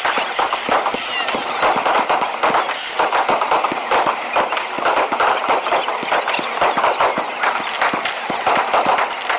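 Aerial fireworks going off in rapid succession: a dense, continuous run of sharp pops and crackles from many shell bursts and crackling stars.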